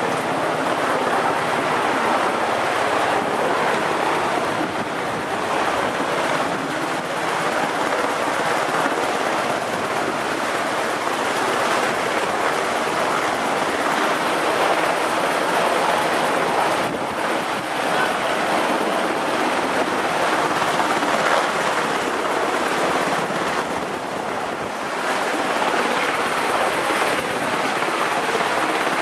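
Loud, steady rushing noise of wind and machinery on the deck of a ship underway at sea, with no clear single event standing out.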